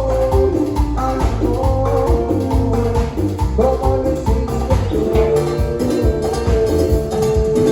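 Live cumbia band playing with a steady beat.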